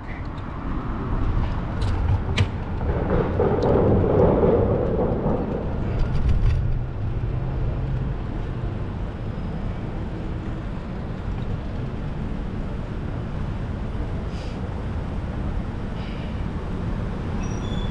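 Steady wind and road rumble from riding a bicycle, with a louder swell about three to five seconds in and a few faint clicks early on.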